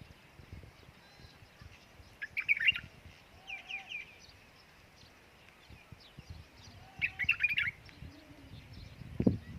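Small birds chirping in three short bursts of quick, high chirps, with faint low knocks underneath and a louder thump near the end.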